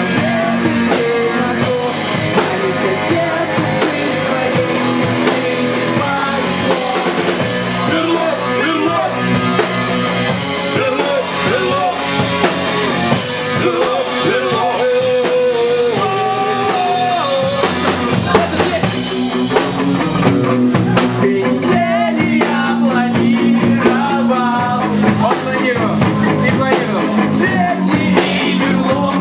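Pop-punk band playing live: drum kit, electric guitar and bass, with a man singing into the microphone.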